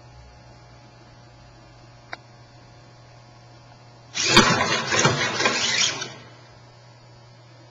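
Genibo robot dog making a loud, noisy, motor-like burst about two seconds long, starting about four seconds in with a sharp click. Before it there is only a low steady hum and a faint click.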